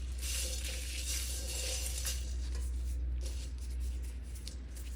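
Whole spices and dried chillies being stirred and roasted in a wok, with irregular scraping and rattling strokes of the spatula against the pan. A steady low hum runs underneath.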